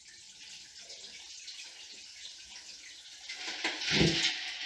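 Water being poured out of a large stainless steel stockpot into an empty bathtub: a steady splashing that swells into a heavier gush with a thud about four seconds in.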